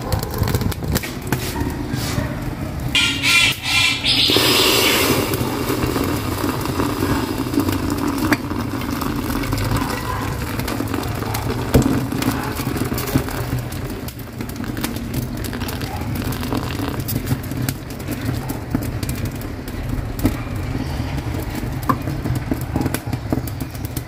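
A wood fire burning in the firebox of a wood-burning stove, crackling and popping over a steady low rumble of flames.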